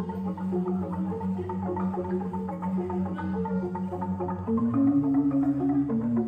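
Balinese bamboo ensemble music: jegog bamboo tubes and tingklik bamboo xylophones struck in quick, busy patterns over deep, sustained bass notes. The bass moves up a step about three-quarters of the way through.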